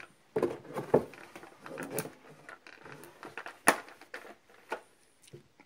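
A folded paperboard chessboard being opened out and pressed flat on a cloth-covered table: soft taps, knocks and rustles of the board, with one sharper knock a little past halfway.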